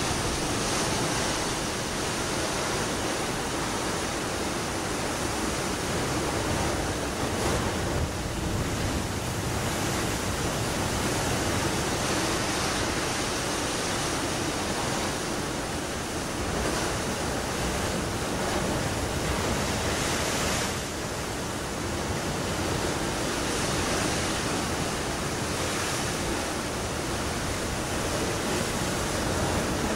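Sea surf: a steady rush of breaking waves, swelling every few seconds.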